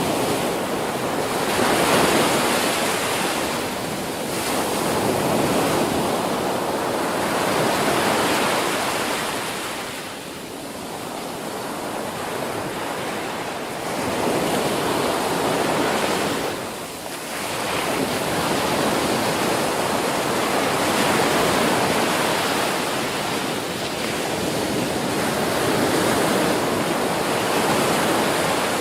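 Ocean surf: waves breaking and washing up a beach in a continuous rushing that swells and ebbs every few seconds.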